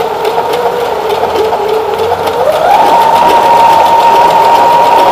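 Electric domestic sewing machine running an overlock zigzag stitch with an overlock foot, its motor whine steady, then rising in pitch about two and a half seconds in as the machine speeds up, and holding at the faster speed.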